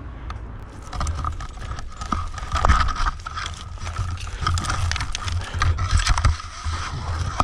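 Climbing gear being worked by hand: yellow climbing rope dragged through a metal rope adjuster and carabiners on a climbing harness, giving irregular clicks, scrapes and knocks, with conifer branches rustling.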